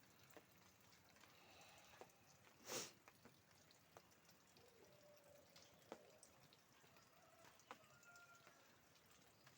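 Near silence: faint outdoor ambience with scattered soft ticks and a brief louder swish about three seconds in.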